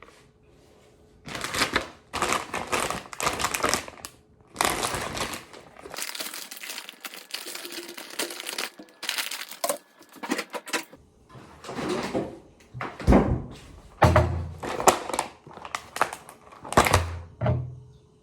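Handling noises: irregular crinkling and rustling, as of packaging, mixed with short knocks of objects being picked up and set down.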